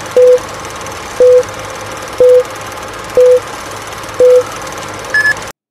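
Electronic countdown beeps: a short low beep once a second, five times, then one short higher beep, over a steady hiss and hum that cuts off suddenly near the end.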